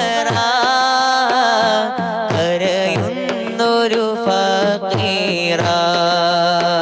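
Devotional song music: a wavering melodic line over a steady drum beat of about two strokes a second.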